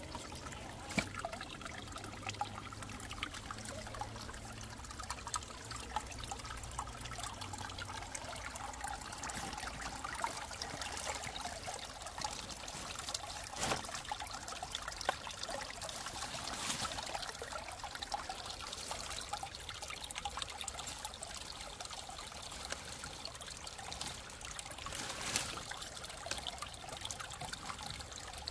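Small woodland creek trickling over rocks. Several sharp knocks, from the RC rock crawler's tyres and chassis on the rocks, break through the water sound. A low hum runs for the first eight seconds or so, then fades.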